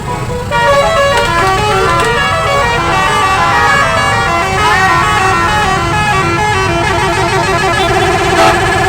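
Telolet horn, a set of tuned multi-tone air horns, playing a quick melody of stepping notes over a low engine rumble, then stopping abruptly at the end.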